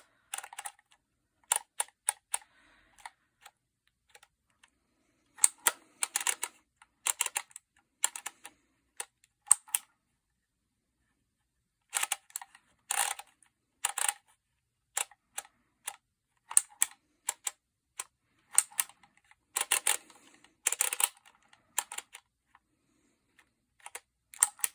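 Handheld Phomemo E975 embossing label maker at work: the letter dial clicking round and the grip squeezed to punch each letter into the plastic tape, giving sharp clicks and clacks in irregular clusters, with a pause about ten seconds in.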